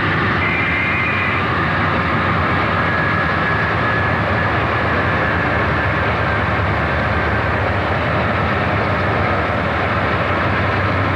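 Conrail freight train passing close by: diesel locomotives running with a steady engine drone and rolling wheel noise, then the train's cars following.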